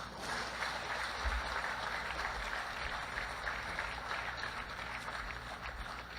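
Crowd applauding: many hands clapping at once in a steady patter.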